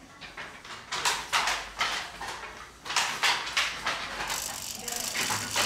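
Wooden handloom being worked, clattering and knocking in irregular bursts as the shuttle is thrown and the beater is pulled.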